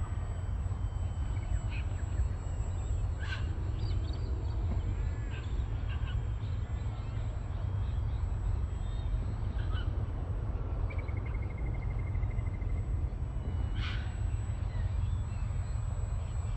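Birds chirping, with a quick trill of repeated notes about two-thirds of the way through, over a steady low wind rumble on the microphone. Two sharp clicks stand out, one early and one near the end.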